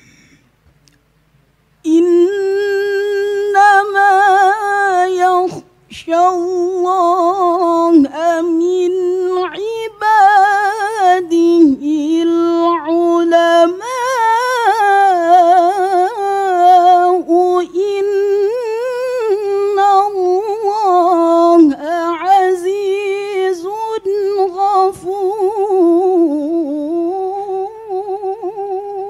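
A woman's solo voice in melodic Qur'an recitation (tilawah): a long, ornamented phrase held high with quick wavering turns, starting about two seconds in and broken only by a few brief breaths.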